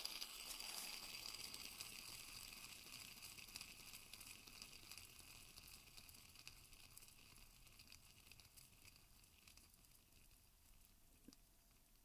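Hand fidget spinner whirring on its bearing as it coasts down, the faint whir fading steadily as it slows; one small click near the end.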